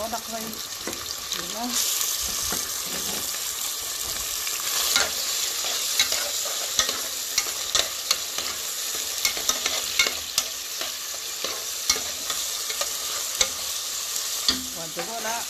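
Diced raw chicken and chopped onion sizzling in hot oil in a metal pot, stirred with a metal spoon that clicks and scrapes against the pot many times over the steady sizzle.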